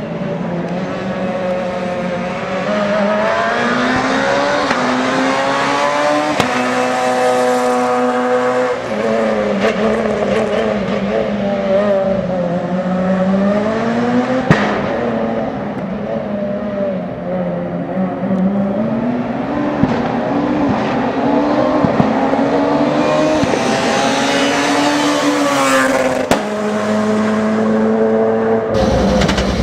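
S2000 rally cars' naturally aspirated four-cylinder engines accelerating and revving hard, the pitch climbing and dropping again through gear changes over several short takes. About halfway through there is a single sharp crack.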